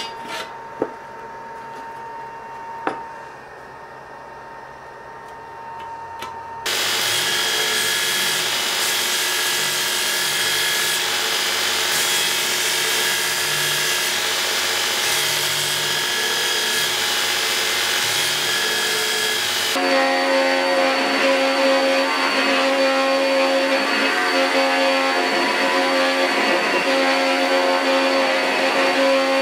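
A few light clicks of steel as a sword guard is fitted over the blade. Then a belt grinder starts suddenly and runs steadily, grinding the steel guard. About 20 seconds in the sound changes to a second belt grinder with a steady hum, grinding the guard on a small wheel.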